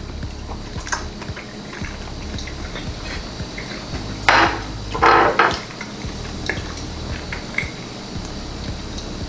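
A man makes two forceful, breathy exhalations about four and five seconds in, reacting to the burning heat of a hot buffalo shrimp he has just bitten into. Faint clicks sound under a low steady room hum.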